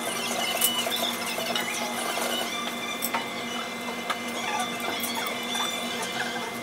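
Busy café background noise: scattered clatter and clicks with faint wavering tones and a thin steady whine underneath.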